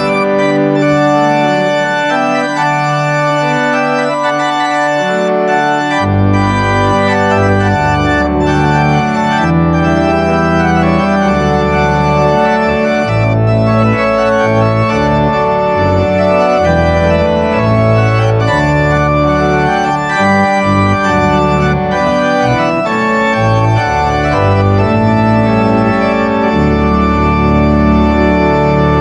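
Organ music: full sustained chords changing steadily, with deep bass notes joining about six seconds in.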